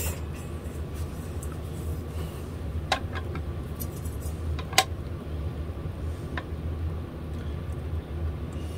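A few light metallic clicks as a notched steel straightedge is set down on the guitar neck's frets, over a steady low hum.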